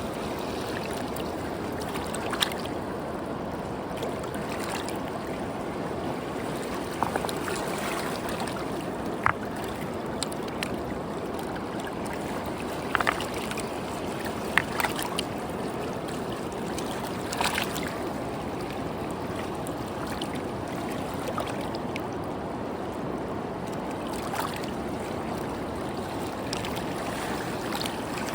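Running water: a steady rush with sharp little splashes or drips breaking through now and then, about a dozen of them.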